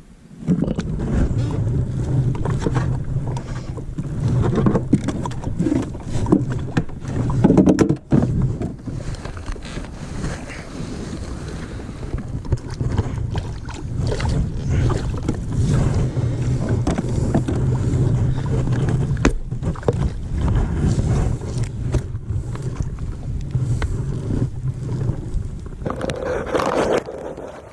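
Wind rushing over the microphone and water sounds around a kayak, a continuous low rumble with scattered knocks from the boat and its gear.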